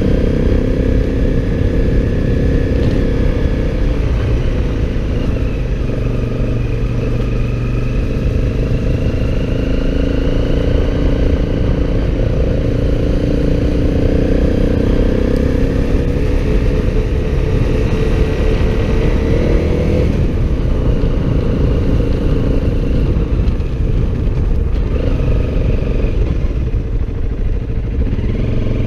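Motorcycle engine running under way, its note rising and falling several times as the speed changes, over a constant low rumble.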